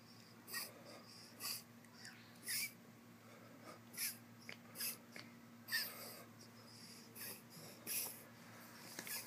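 A pet animal breathing with short, sharp sniffs, about a dozen of them spaced unevenly, over a faint steady hum.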